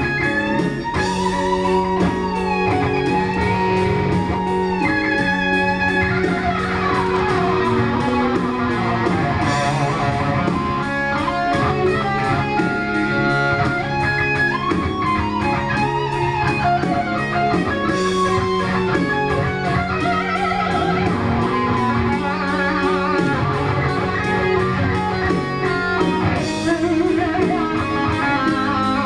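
Electric guitar playing a lead passage with quick melodic runs and string bends over steady low notes.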